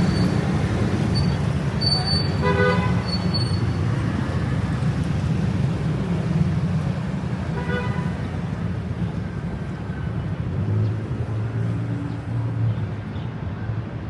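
City street traffic: a steady low rumble of vehicle engines, with two short horn toots, one about two and a half seconds in and one near eight seconds.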